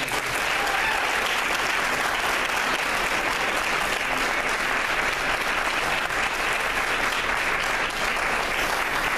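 Audience applauding, a long steady round of clapping with no letup.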